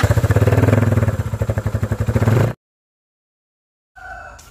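Motorcycle exhaust running loud with a rapid, even pulsing, cutting off abruptly about two and a half seconds in. After a second of silence, a fainter sound with steady high tones begins near the end.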